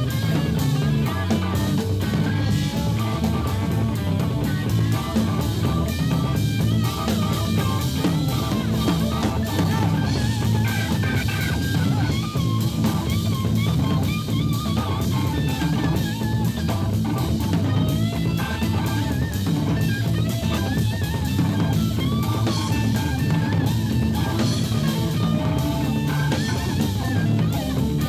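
Live blues-rock band playing an instrumental passage: a lead electric guitar line over busy drum-kit playing with cymbals, at a steady high level.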